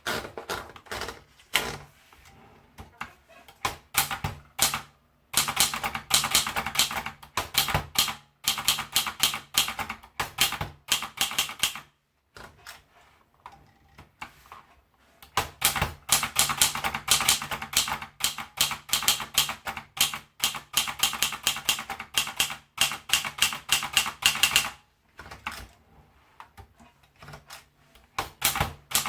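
Triumph Tippa portable manual typewriter being typed on, its keys striking in fast runs. Keystrokes come slowly and scattered at first, pause about twelve seconds in, then run fast again until a slower stretch near the end.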